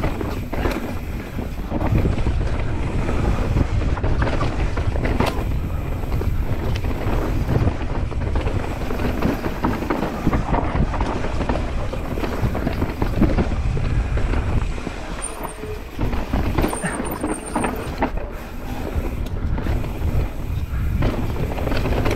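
Mountain bike descending a dirt trail at speed under heavy wind rush on the microphone. Tyre noise, with frequent short knocks and rattles from the bike over rough ground.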